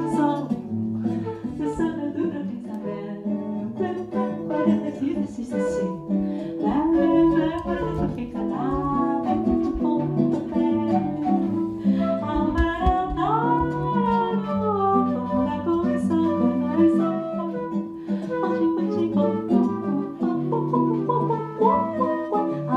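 Live bossa nova played on acoustic guitar, with a voice singing over it.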